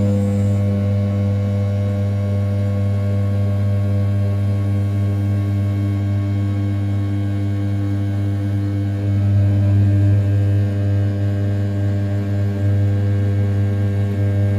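RZ420 desktop CNC mill's 500 W brushless spindle at 6000 rpm, roughing the outer profile of an A7075 aluminium block. It makes a steady, loud droning hum with a stack of overtones, swelling louder for a while about nine seconds in as the cut's load changes.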